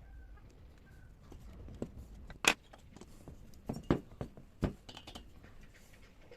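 A few sharp clicks and knocks of metal tools and chainsaw parts being handled during reassembly. The loudest comes about two and a half seconds in, followed by three or four more over the next two and a half seconds.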